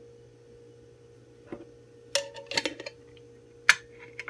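A spoon tapping and clinking against a bowl as turmeric powder is tipped out of it: one light tap, then a quick cluster of clinks about halfway through, and a sharper tap near the end. A faint steady hum sits underneath.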